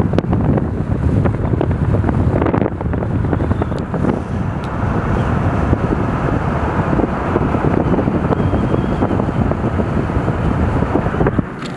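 Wind buffeting the microphone of a moving car, mixed with tyre and road noise at highway speed: a loud, steady, rumbling rush that eases slightly near the end.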